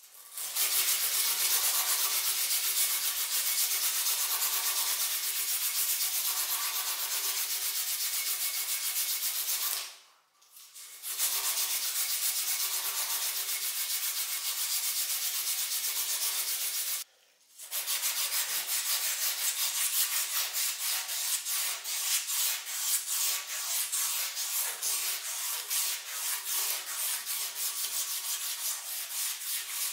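A strip of sandpaper rubbed back and forth around the bare iron handle loop of antique scissors, a steady scraping hiss as the rust-pitted metal is smoothed. The rubbing stops briefly twice, and after the second pause the separate back-and-forth strokes come through as a quick rhythm.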